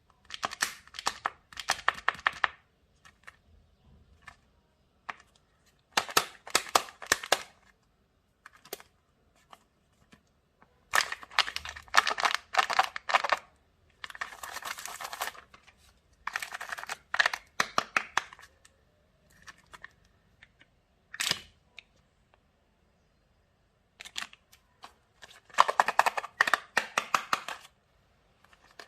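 Kinder Surprise eggs being unwrapped and opened: foil wrappers crinkling and tearing, with clicks and cracks, in about seven bursts separated by short pauses.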